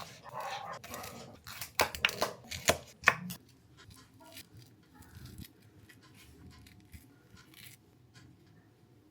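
Knife cutting produce on a cutting board: a run of sharp cuts through the first three seconds, then only faint scattered clicks.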